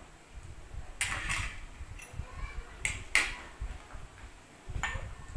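Ceramic bowl and dishes knocking and clinking as they are set down on a plate and table: about half a dozen sharp knocks, the loudest about three seconds in.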